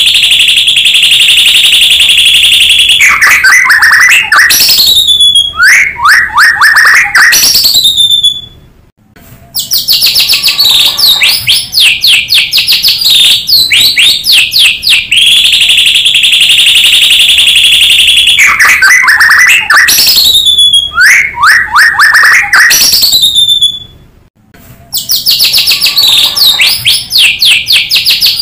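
White-rumped shama (murai batu) song, a loud recording played as a lure: rapid chattering trills, a steady buzzy trill, then falling whistled notes. It breaks briefly twice, and the same run of phrases repeats about every fifteen seconds.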